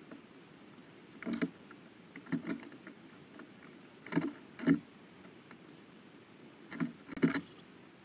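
Blue jay pecking at food on a wooden platform feeder close to the microphone: a handful of irregular sharp knocks, some in pairs, the loudest about halfway through and near the end.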